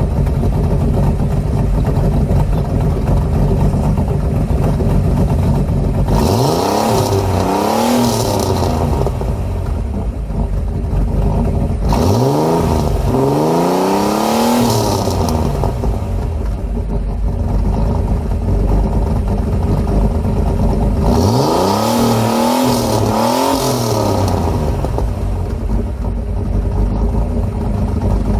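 1987 Pontiac Fiero engine and exhaust idling, revved up and back down in three spells, about six, twelve and twenty-one seconds in, then settling back to idle.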